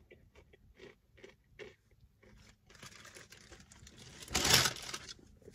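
Soft chewing with small mouth clicks, then rustling that swells into a loud, short crinkling burst about four and a half seconds in and dies away.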